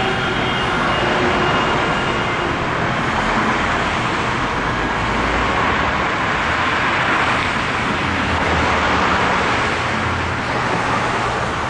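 Loud, steady rush of road traffic passing a light-rail station, with a light-rail train's steady tones fading out in the first second.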